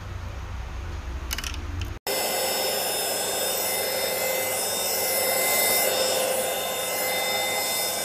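Airbot Supersonics Aura cordless stick vacuum cleaner running while vacuuming carpet: a loud, steady rush of air with several high, steady whining tones. It starts suddenly about two seconds in, after a low rumble with a few faint clicks.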